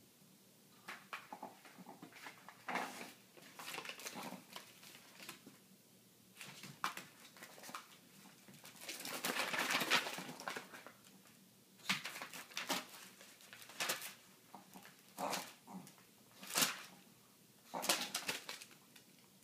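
A Shih Tzu mauling a paper envelope: the paper rustles and crinkles in short, irregular bursts, with the dog's own small noises mixed in. The longest and loudest stretch of crinkling comes about ten seconds in.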